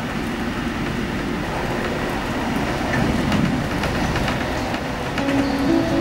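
Passenger train running at speed, heard from inside the carriage: a steady rumble and hiss of the wheels on the rails, with a few faint clicks. Music comes in about five seconds in.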